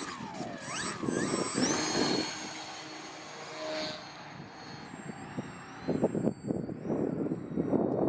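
Small electric RC aerobatic plane's motor whining high, rising about a second and a half in, then holding and wavering as the throttle changes. Wind buffets the microphone, heavier near the end.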